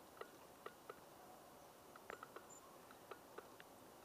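Faint, irregular clicking, a few clicks a second, from a garden-railway model passenger train's metal wheels running over the rail joints, heard over near silence.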